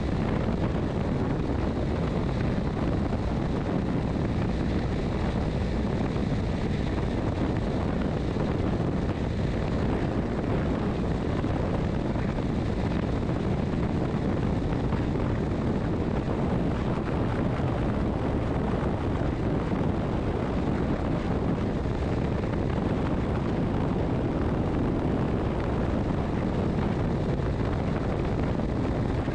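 Motorcycle cruising at a steady highway speed: constant wind rush on the bike-mounted microphone, with a low rumble of engine and tyres beneath it and no change in speed.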